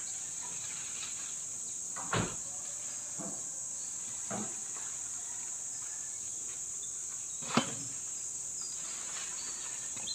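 Several dull knocks and thuds of wood, loudest about two seconds and seven and a half seconds in, over a steady high-pitched drone of insects.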